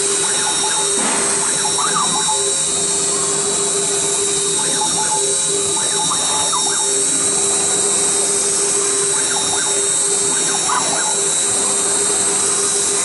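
Redsail CNC router spindle running steadily with a high-pitched whine while it engraves a circuit board.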